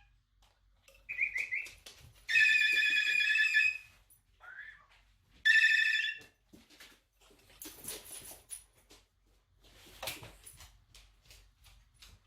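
Moluccan cockatoo mimicking a telephone ringing: a brief trill, then two loud ring bursts, followed by a few rough, noisy sounds.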